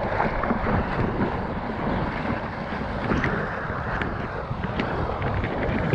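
Seawater rushing and splashing around a surfboard as it is paddled through small surf, with a few light splash ticks and wind on the microphone.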